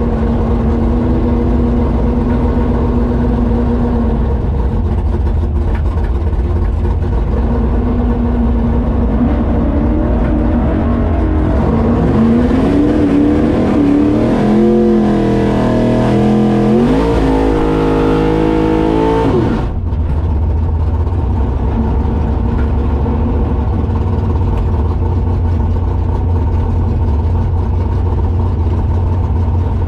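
V8 engine of a 1983 Ford Ranger drag truck running loudly, heard from inside the cab. In the middle, an engine's pitch rises and falls for several seconds, then drops back suddenly about two-thirds through to a steady, deep running note.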